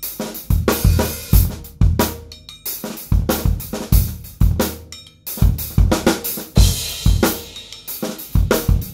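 Acrylic drum kit played in a busy groove: bass drum, snare and hi-hat with cymbal hits. The beat drops out for a moment a little past halfway, then comes back in with a strong hit.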